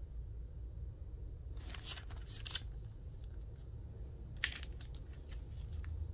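Plastic comic-book sleeve crinkling for about a second as the comic is handled, then a single sharp tap a couple of seconds later, over a low steady hum.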